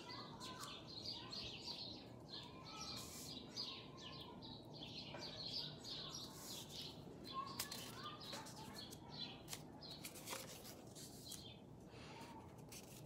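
Small paper picture cards set down one by one on a cloth-covered table, giving faint taps and slides, with faint bird chirps in the background.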